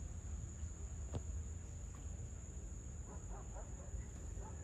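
Dusk outdoor ambience: insects trilling steadily on one high note over a low rumble, with a single sharp click about a second in and a few short animal calls near the end.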